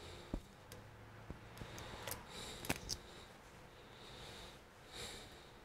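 Faint clicks and taps of laptop parts being handled: a motherboard and ribbon cable being pressed into place inside an opened notebook chassis, with the sharpest click about halfway through. A few soft breaths are heard in between.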